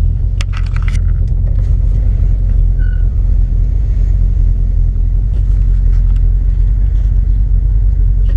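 Mildly built small-block Chevy V8 in a 1980 Oldsmobile Cutlass drag car idling steadily, loud and deep.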